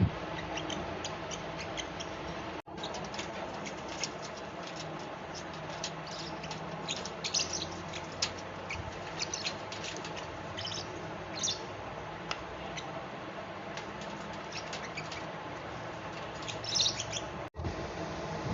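Fischer's lovebird chirping: a busy run of short, high-pitched chirps and twitters, some in quick clusters, over a steady background hum.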